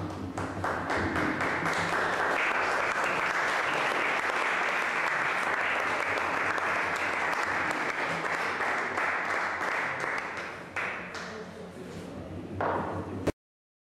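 Audience applause that builds over the first second or two, holds steady, then thins out to scattered claps with a short last burst before it cuts off abruptly.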